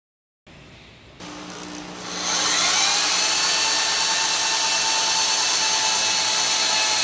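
Black Diamond portable lifter's electric winch motor winding its steel cable onto the reel to raise the mast. A low hum starts about a second in, then a whine rises in pitch over about a second and holds steady.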